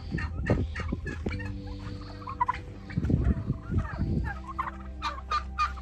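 Domestic turkeys calling, strings of short, rapid calls repeating throughout, over a steady low rumble.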